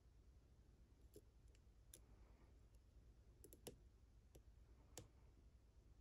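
Near silence with a few faint, light clicks of a hook pick working the pin stacks inside an aluminum Brinks pin-tumbler padlock under tension, including a quick run of three clicks about halfway through.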